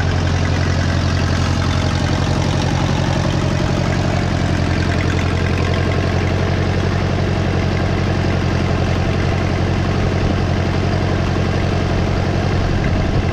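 An engine idling steadily at an even speed, with no revving.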